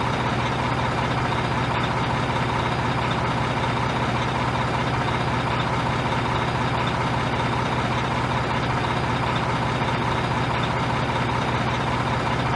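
Steady, unchanging engine hum like a truck idling, with no rise or fall in pitch or level.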